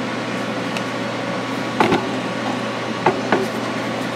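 Steady hum of a powered-up shop machine, with a few short clicks and knocks of the MIG torch being handled as its nozzle is fitted back on: one about two seconds in, then two just after three seconds.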